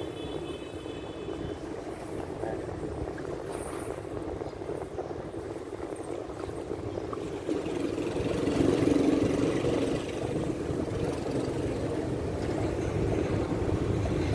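A steady engine drone, swelling louder about eight seconds in and then easing back.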